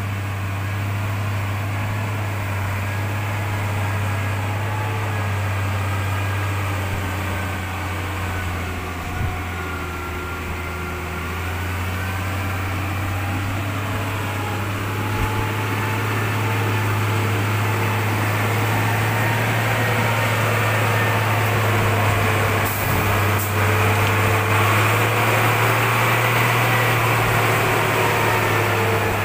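Engine of a modified log truck running under way, its pitch drifting up and down and growing louder from about halfway through. Two short clicks come about three-quarters of the way in.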